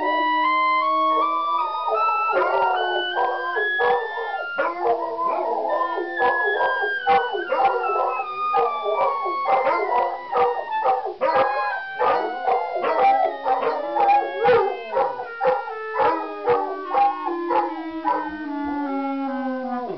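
A clarinet plays a chromatic scale in even half-step notes, with the scale stepping downward near the end. A basset hound and two other hounds howl along with it, with short bays and yips breaking in.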